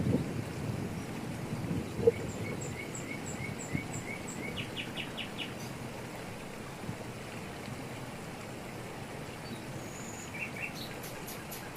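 Steady rush of a waterfall in tropical forest, with birds calling over it: a run of about eight quick, even notes a couple of seconds in, a short burst of rapid notes about five seconds in, and a few high, clicking notes near the end. A low, uneven rumble in the first two seconds ends in a single sharp thump.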